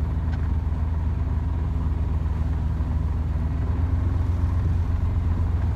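Sailing yacht's inboard engine running steadily under way, getting a little louder about four seconds in.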